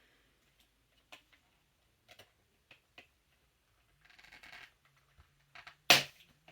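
Sewing scissors snipping and clicking at the doll's packaging ties, in a handful of separate sharp clicks, with a brief rustle of plastic and cardboard packaging. One much louder sharp crackle of packaging comes near the end.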